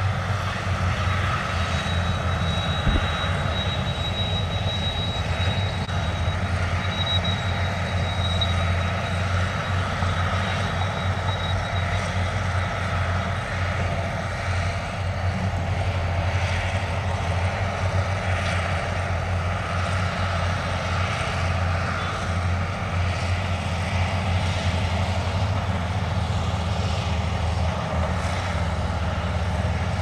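Dump truck's diesel engine running with a steady low drone while the tipper bed is raised to unload soil and rock. A faint high whine sounds over it for the first several seconds.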